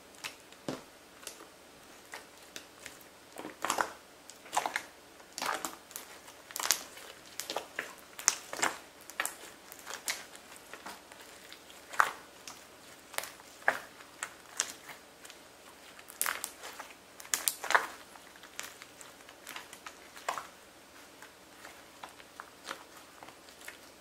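Hands kneading, stretching and pressing a glossy red slime on a tabletop. It makes irregular squishy pops and clicks, sometimes several in a second, louder through the middle and fainter toward the end.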